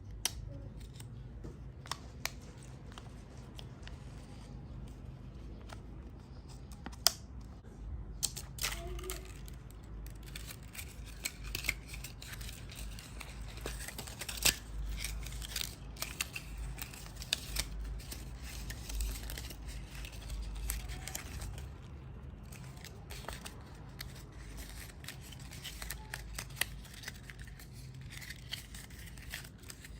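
Hands working wrappers close up: crinkling and tearing packaging, with many scattered sharp clicks and taps, busiest in the middle stretch.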